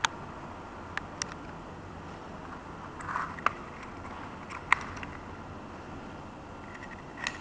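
A few sharp clicks and taps from a small plastic keychain tape measure and its metal key ring being picked up and handled, scattered over a steady hiss.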